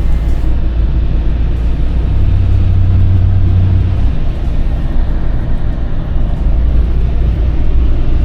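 Motor vehicle running on the move, a loud, steady low engine sound heard from inside the cab, with a deeper hum swelling for a couple of seconds about two seconds in.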